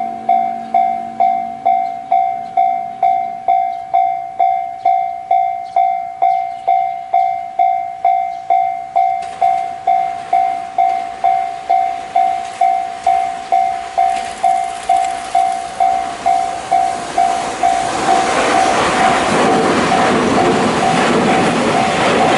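Japanese level-crossing warning bell ringing, an even ding about twice a second, as a freight train approaches. About eighteen seconds in, the loud noise of the train's cars and wheels going past takes over and drowns the bell.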